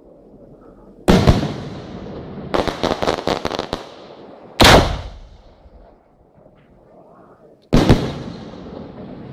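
Aerial firework shells bursting: three loud booms, about a second, four and a half seconds and seven and a half seconds in, each fading away, with a quick run of crackling pops between the first two.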